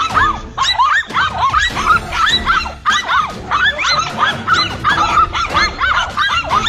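Several dogs barking over and over, short high barks and yaps overlapping with no pause, as they confront a monitor lizard at bay.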